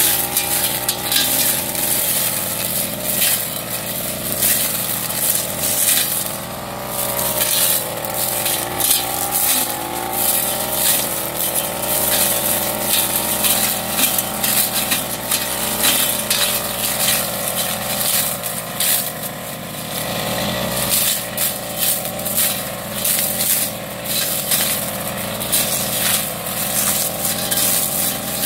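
Backpack brush cutter engine running at high revs, its pitch wavering up and down as the cutting head swings through tall cogon grass. Frequent sharp crackles and snaps come from the head striking the stems.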